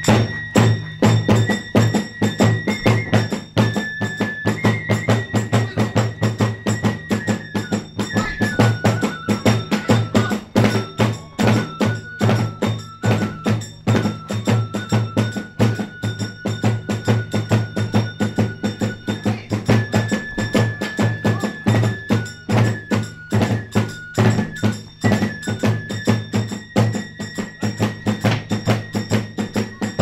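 Kagura hayashi ensemble playing a fast, steady rhythm: a large drum beats continuously under ringing hand cymbals, while a bamboo transverse flute holds long high notes that step down the scale in the middle and climb back up near the end.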